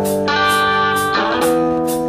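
Rock music led by electric guitar, instrumental with no singing, over a steady beat.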